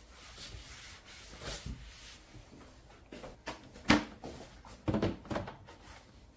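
A cloth rubbing over a kitchen sink counter, then one sharp plastic knock about four seconds in and a short clatter of smaller knocks as a plastic dish drying rack is handled and set down on the counter.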